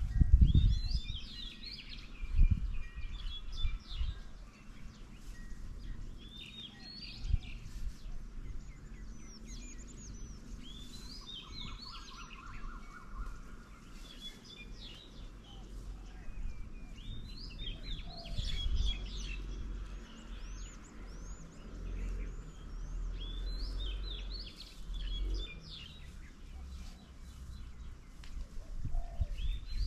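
Birds chirping and singing in repeated short, quick phrases, with a fast even trill about twelve seconds in. Low thumps and rumble sound underneath at times.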